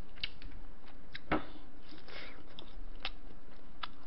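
Close-miked eating: scattered sharp clicks and crunchy chewing as a piece of fried pork cutlet (tonkatsu) is picked up with chopsticks and eaten, the loudest click about a second in.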